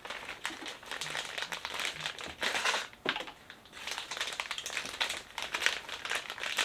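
Packaging of spare shoe swooshes being handled and opened, a run of irregular crackling and rustling, loudest about two and a half seconds in.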